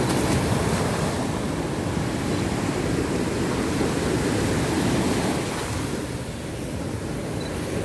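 Sea waves breaking and washing up a sandy beach, a steady low rush that eases a little about six seconds in, with sea wind buffeting the microphone.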